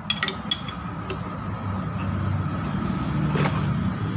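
A few sharp metal clinks in the first half-second, then single clinks, from a wrench on the engine's metal parts as the 4D56 engine's crankshaft is turned over by hand toward top dead centre for valve clearance adjustment. A low rumble grows underneath from about halfway.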